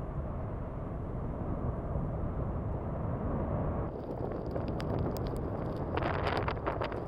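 Low, steady rumble of the erupting Fagradalsfjall volcanic vent. About four seconds in it gives way to gusty wind buffeting the microphone, with sharp clicks and crackles.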